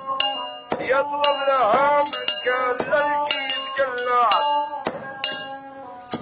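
Brass mortar struck with a metal pestle, pounding roasted coffee beans for Arabic coffee: a rhythmic run of ringing metallic strikes, about two to three a second, some of the rings bending in pitch.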